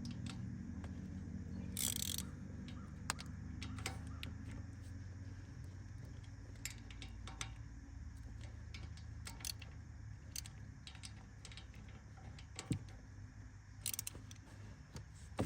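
Hand tool tightening the ATV's cover bolts down fully after they were first snugged to seal the edges: scattered, irregular metallic clicks and scrapes of the tool working, over a low steady hum.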